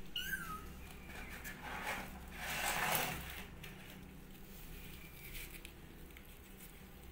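Plastic bag rustling and crinkling as it is handled, loudest about two to three seconds in, over a steady low hum.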